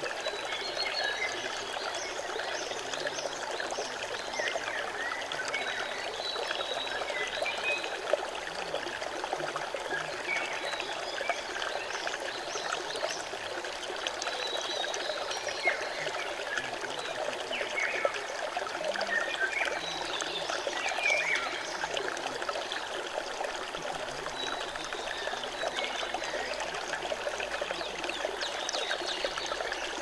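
Shallow rocky stream running over stones close by: a steady rush of water with constant small splashes.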